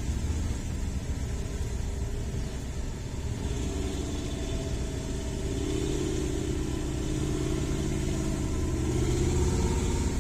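Heavy diesel engine of an off-road dump truck running under load, with a low rumble, getting louder and more strongly pitched in the second half.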